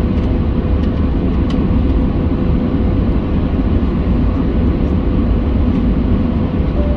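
Cabin noise of a Boeing 737-700 taxiing: the CFM56-7B engines running at taxi power, heard inside the cabin as a steady low rumble with a faint steady hum.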